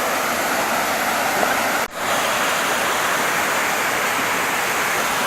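Waterfall pouring: a steady, loud rush of falling water, cutting out for an instant about two seconds in.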